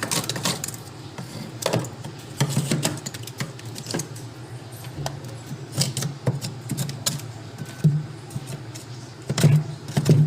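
Irregular sharp clicks and knocks of hard pieces striking each other: ice being chipped and broken loose from a fridge's heavily frosted freezer compartment.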